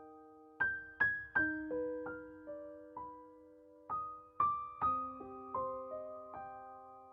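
Background music: a slow, gentle piano melody of single sustained notes and soft chords.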